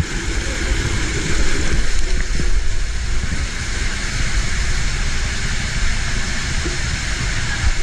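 Water rushing down an enclosed plastic tube water slide as a rider slides through it fast, heard from the rider's body-worn camera: a loud, steady rush with a deep rumble underneath.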